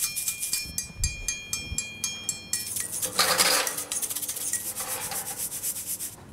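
Oven door opened with a couple of low knocks, then a metal baking tray scraped out along the oven's wire rack, loudest about three seconds in, over background music with a rapid shaker rhythm.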